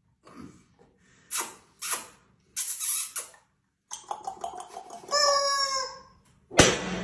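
Chicken calling: a few short harsh squawks, then a longer pitched crow-like call about five seconds in. A sharp loud thump comes near the end.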